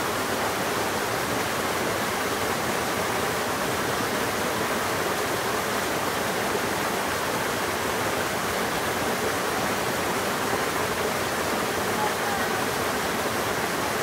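A small waterfall cascading over rocks into a shallow pool in a mountain stream: a steady, unbroken rush of falling and splashing water.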